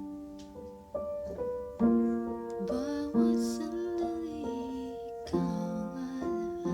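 Piano chords played slowly, a new chord every second or two, with a soft, breathy singing voice over them.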